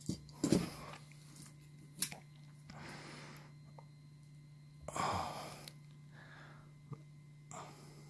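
Quiet bench handling: faint clicks of steel needle-nose pliers on stranded copper wire and cord, with breathy exhales, the loudest about five seconds in, over a steady low hum.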